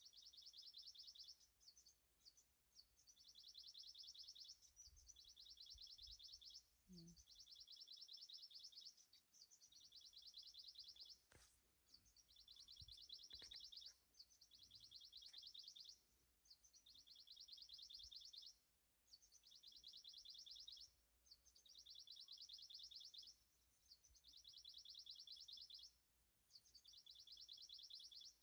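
Faint, high-pitched trilling call: rapid pulses repeated in bursts of about one and a half to two seconds, with short breaks between them.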